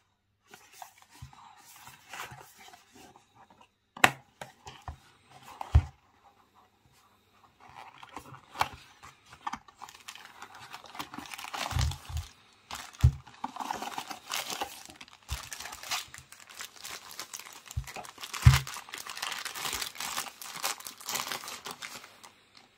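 Packaging being torn open and crinkled by hand, with irregular rustling and several sharp knocks among it.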